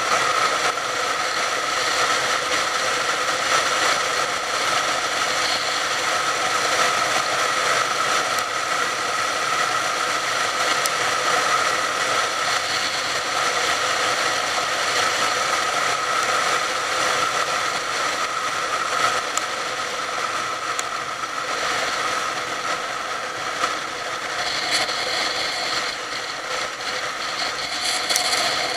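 Motorcycle cruising at a steady speed: the engine runs with a constant whine, mixed with wind and road noise, heard through the bike-mounted camera.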